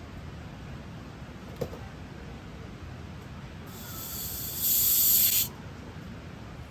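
A spray-like hiss that builds for about a second, stays loud for about another second, then cuts off suddenly. It sits over a steady low rumble, with a faint click before it.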